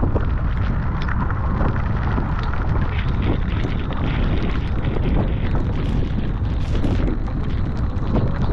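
Heavy, steady wind buffeting the microphone, with the splashes of surfski paddle strokes cutting through it as short sharp hits.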